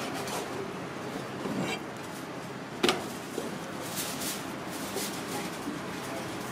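Knife work on a plastic cutting board as a ribbon fish fillet is skinned and sliced: one sharp knock about three seconds in, then a few faint taps, over steady background noise.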